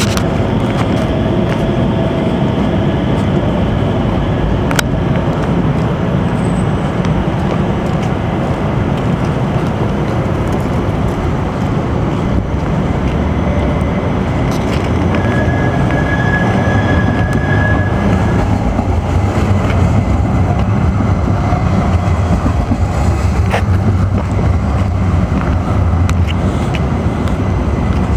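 Hudson-Bergen Light Rail trains and street traffic: a steady rumble, with a brief high tone a little past halfway through.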